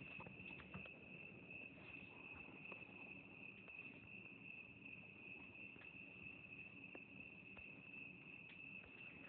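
Faint, steady trilling of crickets: one continuous high-pitched drone that never breaks, with a few faint soft clicks here and there.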